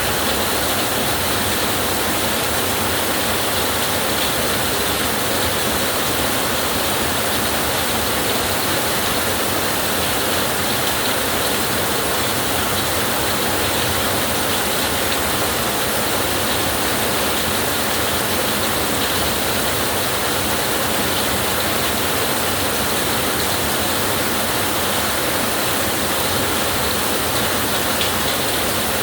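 Heavy rain falling steadily, an even hiss that holds the same level throughout with no thunder or other events.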